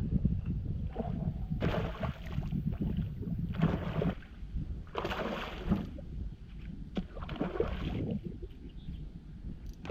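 Wind buffeting the microphone in a steady low rumble, with four short hissing surges of water or wind noise around a small fishing boat.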